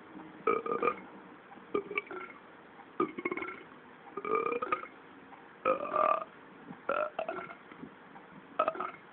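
A cartoon cat's burps played through a TV speaker: a string of about seven short, loud burps, roughly one a second.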